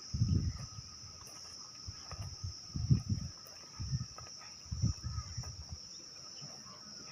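Steady high-pitched insect chorus, with a fainter steady lower tone under it. Irregular low thumps come every second or so, the loudest about three seconds in.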